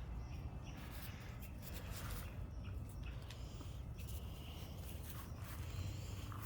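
Faint sounds of a backyard chicken flock: a few soft chirps over a low, steady rumble.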